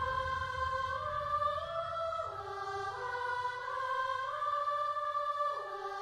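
Slow music with a choir-like sung melody: long held notes in several parts that step together to a new pitch every second or two.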